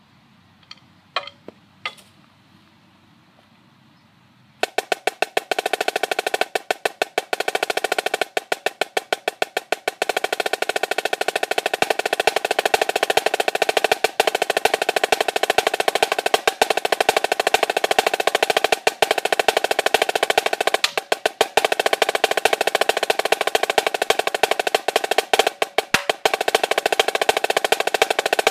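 Marching snare drum played with sticks: a few sharp clicks in the first two seconds, then from about four and a half seconds in a dense run of rapid strokes and rolls, broken only by short gaps.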